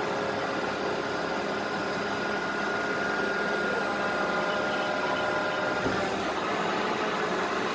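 Rear-loading garbage compactor truck running steadily while its hydraulic packer blade cycles through the hopper, with a steady high whine that stops about six seconds in.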